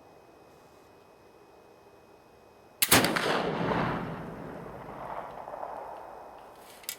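Traditions Kentucky .50-caliber flintlock rifle firing a single shot of a .490 round ball over 90 grains of FF black powder, about three seconds in: a sharp boom that rolls away and dies out over about three seconds. A short sharp click near the end.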